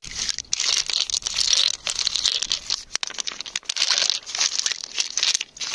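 Irregular gritty crunching and scraping, with many small clicks, like coarse sand, gravel or shell grit being dug or stirred.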